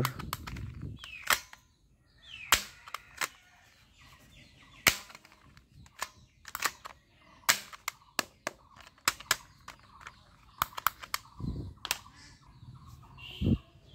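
Toy shotgun being worked and fired: sharp snapping clicks at uneven intervals, some louder than the rest, with a few dull handling knocks near the end.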